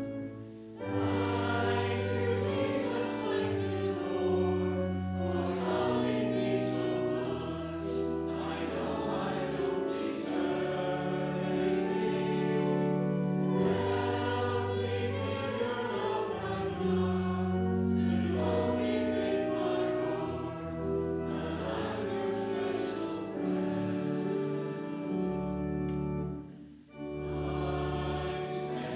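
Church congregation singing a hymn together with instrumental accompaniment in sustained chords, with a short break between lines near the end.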